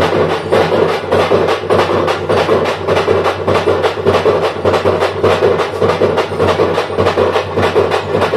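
Drum ensemble playing festival music: rapid, even drumbeats that go on without a break, with steady low tones underneath.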